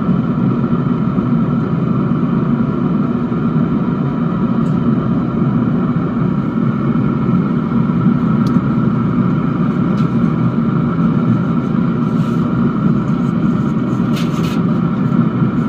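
Recteq RT-400 Patio Legend pellet smoker running: a steady whir and hum from its fan, with a few light clicks and a brief rustle near the end.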